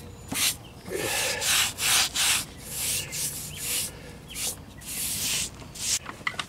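A damp sponge scrubbed over a rough precast concrete step in repeated short strokes, about two a second. It rubs a fresh rapid-set cement patch into the pits to blend it with the surrounding concrete.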